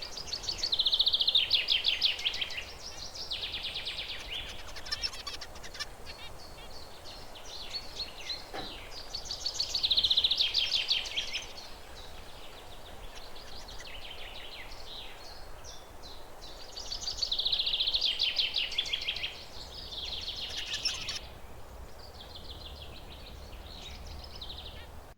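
Zebra finches singing and calling: three louder bursts of buzzy, rapid song about eight seconds apart, with quieter chirps in between.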